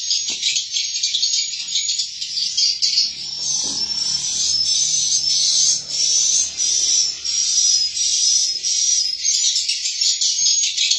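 Continuous dense high twittering of swiftlet calls, the lure-call recording played through the tweeter speakers of a swiftlet nesting house. Short repeated chirps stand out over the twittering about every half second through the middle.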